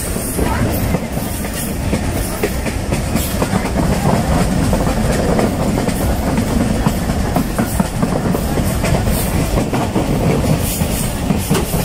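Passenger train running along the track: a steady, loud rumble of the coach, with scattered clicks from the wheels.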